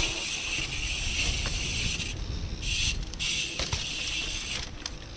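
Mountain bike rear hub freewheeling: a fast buzzing ratchet while coasting, breaking off twice and stopping near the end, over a low rumble.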